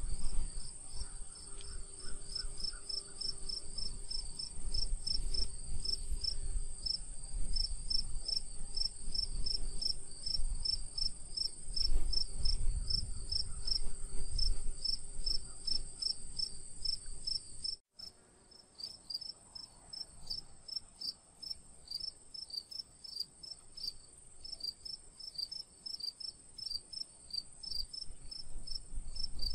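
Insects chirping: a pulsed high chirp about four times a second over a continuous, steady high buzz. About two-thirds of the way in, the sound cuts out for an instant and the low rumble beneath it drops away, while the chirping carries on.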